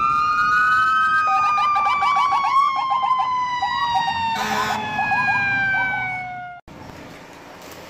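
Emergency vehicle sirens: a sustained siren tone slowly falling in pitch, with a fast electronic yelp chirping about four times a second over it and a short harsh blast about halfway through. The sirens cut off abruptly near the end, leaving a quieter steady background.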